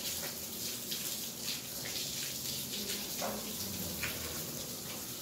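Water running from a garden hose onto a wet concrete floor: a steady hiss with a few brief splashes.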